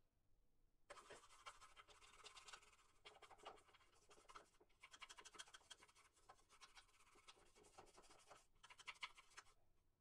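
Toothbrush bristles scrubbing the plastic detergent drawer of an automatic washing machine: faint, rapid scratching that starts about a second in and stops briefly a few times. The brushing is working loose detergent grime softened by a vinegar soak.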